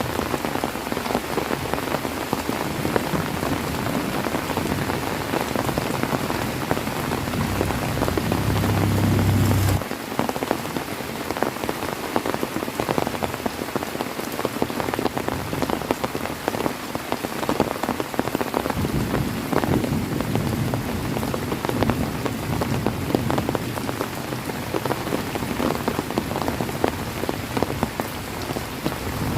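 Heavy rain falling steadily on a surface, a dense hiss full of individual drop taps. A low rumble swells over the first ten seconds and cuts off abruptly; weaker low swells come back in the second half.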